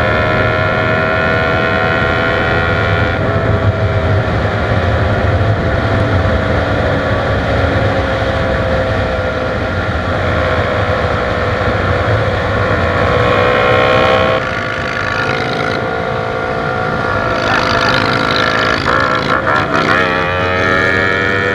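Kawasaki Ninja 250's parallel-twin engine running hard under way, heard onboard over wind and road rush. The engine note drifts slowly, drops about 14 seconds in, and climbs again in rising sweeps near the end as the bike accelerates.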